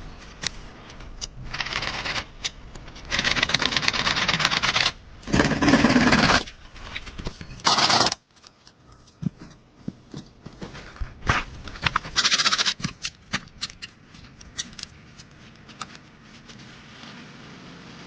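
Repeated bursts of rustling and scraping, like branches and leaves being handled, with many sharp clicks and knocks between them. The longest bursts come in the first half, and it is quieter and more scattered after about eight seconds.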